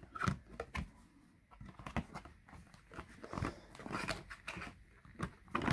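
Cardboard paint-pack sleeve being slid open and handled, its tray of small plastic paint bottles shifting, giving scattered light clicks, scrapes and rustles.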